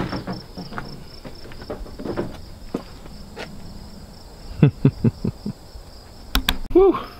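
Crickets chirping steadily. A quick run of five or six knocks comes about four and a half seconds in, and a short exhale ('whew') near the end.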